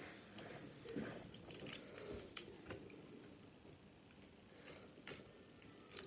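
Faint close-up eating sounds of crab leg meat: biting and chewing, with scattered soft clicks and a few sharper ticks from the shell.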